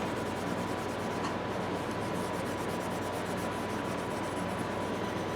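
Fine 0000 steel wool rubbed over steel pliers in a steady scrubbing, buffing down a freshly applied blackening finish.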